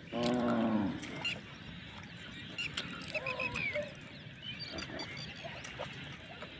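A cow's short moo, under a second long with a slightly falling pitch, at the start, followed by faint chirps and a weaker call a few seconds in.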